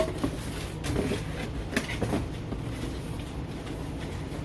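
Corrugated cardboard being handled as a cardboard shelf is fitted into a display shipper: a few short knocks and scrapes in the first couple of seconds, over a steady low background rumble.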